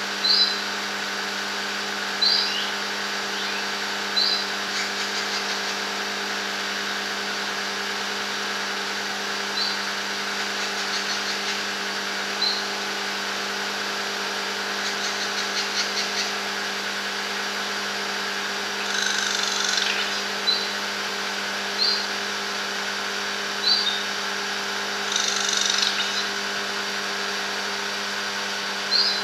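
Racket-tailed treepie (tangkar cetrong) calling: short, sharp upward notes every few seconds, runs of rattling chatter, and two louder, harsher bursts about two-thirds of the way in and near the end. A steady machine hum runs underneath.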